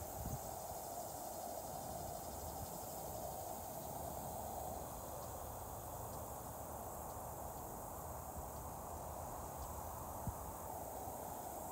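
Steady outdoor evening ambience of an insect chorus, with a low rumble of wind or handling on the microphone underneath.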